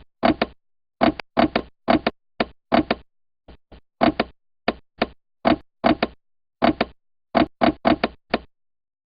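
Knocking: short, sharp raps in quick clusters of two and three, with two softer knocks about three and a half seconds in.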